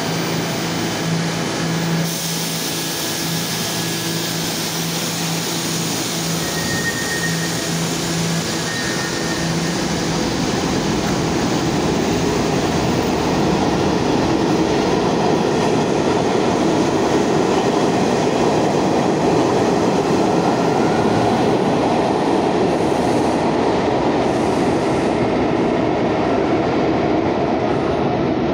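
R68A subway train pulling out of an underground station and running past. A pulsing hum is heard for the first ten seconds or so. Then a rumble of wheels on track grows louder and stays loud as the cars go by.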